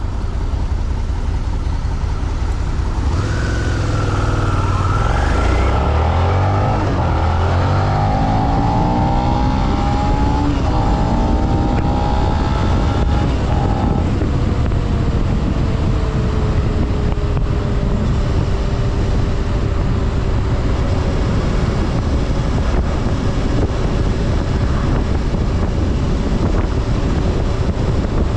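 The 645 cc V-twin of a stock 2024 Suzuki SV650 under way. The engine revs up in rising sweeps during the first half, then settles to a steady, slowly falling note as the bike cruises, over heavy wind noise.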